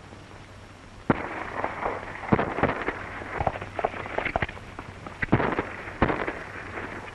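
Rapid, irregular gunshots mixed with the hoofbeats of galloping horses, starting suddenly with a loud crack about a second in.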